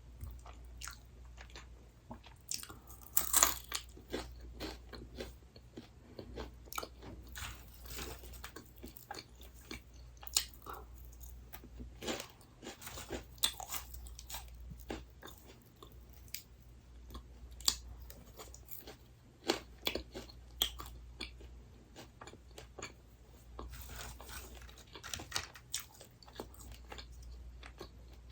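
Close-up eating sounds: crisp snack food bitten and chewed, with many irregular sharp crunches, the loudest about three and a half seconds in.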